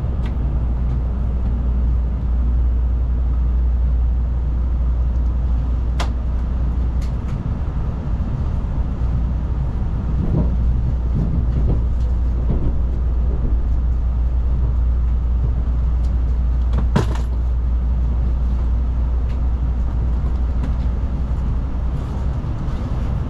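Steady low rumble of a Shinkansen bullet train's cabin as the train runs, with two brief sharp clicks, one about a quarter of the way in and one about three quarters of the way in.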